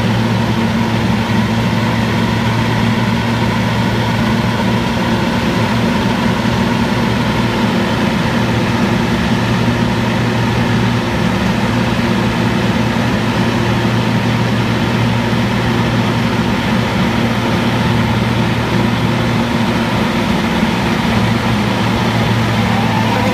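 Vögele Super 1900 asphalt paver's diesel engine running at a steady, constant speed: an even, unchanging low drone.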